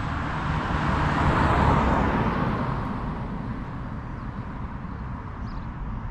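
A car passing by on the road, swelling to its loudest about a second and a half in and then fading away.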